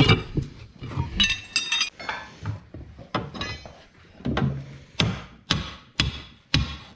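Hammer blows and metal clinks on a tyre lever wedged between a tractor tyre's bead and its steel rim, breaking the bead by hand. There is some ringing about a second in, then steady strikes about two a second near the end.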